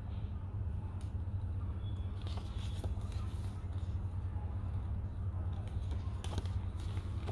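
Paper pages of a folded instruction leaflet rustling as they are handled and turned, in a few short bursts about two seconds in and again near the end. Under them runs a steady low hum.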